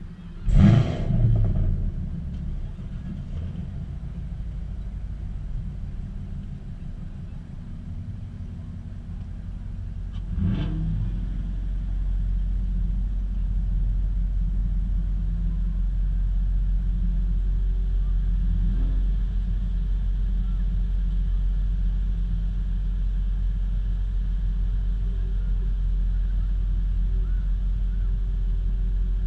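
Idling car engines with a low, steady rumble. An engine flares up loudly for a moment about half a second in, and again about ten seconds in, after which the idle rumble is louder.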